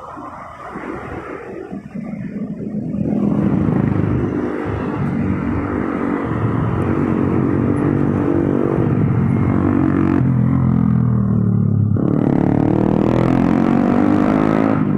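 Motorbike engine running on the road, getting louder from about three seconds in. It drops away briefly near ten seconds, then comes back rising in pitch as it accelerates.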